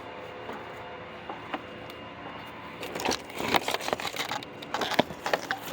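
Rotted, ant-eaten wood crackling and crunching as it is broken apart by hand, in dense irregular crackles from about three seconds in, over a steady hum.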